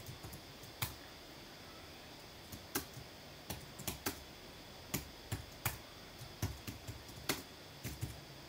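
Computer keyboard being typed on: irregular runs of quick keystrokes, with a pause of nearly two seconds about a second in.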